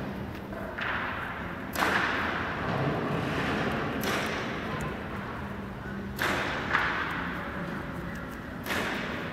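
Paintbrushes flicked hard to spatter paint: about six sharp whip-and-slap strokes at irregular intervals, each trailing off over a second or two in a large hall.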